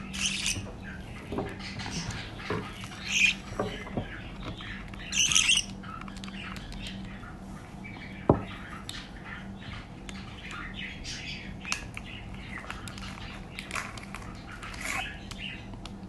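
Budgerigar chicks calling with short squawks and chirps while being spoon-fed formula, a few louder calls in the first six seconds, then softer, more frequent chirps. A single sharp tap about eight seconds in.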